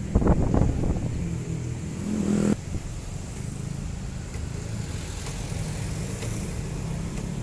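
Motorcycle engine running and revving, rising in pitch and cutting off suddenly about two and a half seconds in, followed by a steady low engine rumble.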